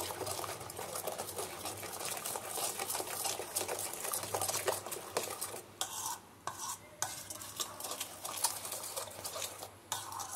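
Metal spoon stirring a thick yogurt and mustard marinade in a stainless steel bowl: a rapid, continuous run of scraping clicks against the bowl, with a couple of short pauses after the middle.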